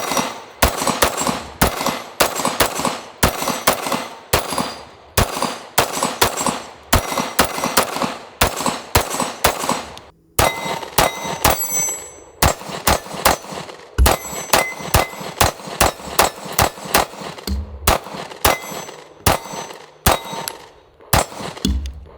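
A 9mm Springfield Armory Prodigy Compact pistol fired in quick strings, about two to three shots a second, with a brief pause about ten seconds in. Some shots are followed by a short metallic ring.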